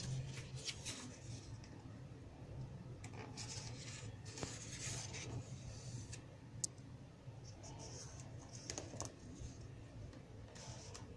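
Glossy magazine pages rustling and being turned by hand, in several spells of dry paper noise, with one sharp click partway through and a low steady hum underneath.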